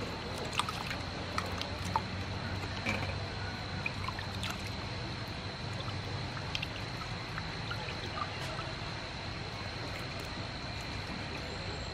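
Water sloshing and splashing in a steel bowl as duck ovaries and egg yolks are tipped in and washed by hand, with scattered small splashes and drips, busiest in the first few seconds.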